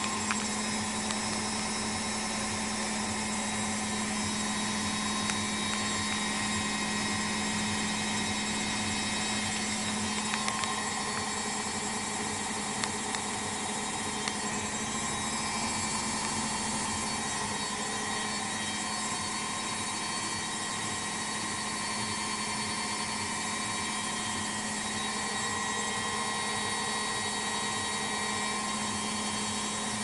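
Ariston front-loading washing machine spinning an unbalanced load, its drum and motor running at a steady pitch without rising or falling, with a few faint ticks.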